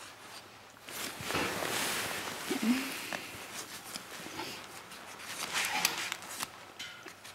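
Rustling and scraping handling noise as a knife cuts the hide away from a lynx's head, with scattered light clicks and two louder stretches of scraping.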